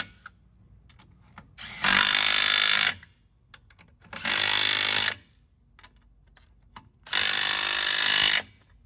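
A power impact wrench running lug nuts onto a car wheel in three bursts of about a second each, with short pauses between them.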